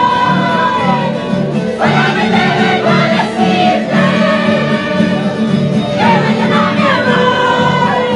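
A group of people singing together in phrases over strummed guitars, live in a crowded room, with a steady pulsing beat. New sung phrases come in about two seconds and six seconds in.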